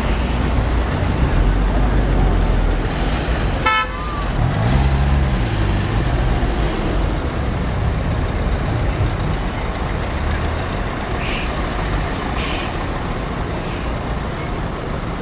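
Street traffic: cars and taxis driving past, with a short car-horn toot about four seconds in and a passing vehicle's engine note rising and falling just after.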